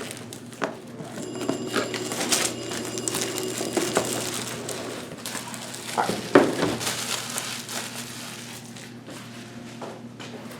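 Packaging crinkling and rustling as a power supply is unboxed by hand, with a few knocks about six seconds in.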